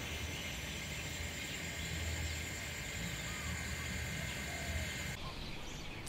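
Outdoor ambience: a steady high-pitched drone over a low rumble, cut off abruptly about five seconds in.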